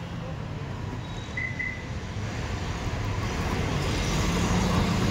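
Steady low rumble of motor vehicle noise with a low hum, growing louder toward the end.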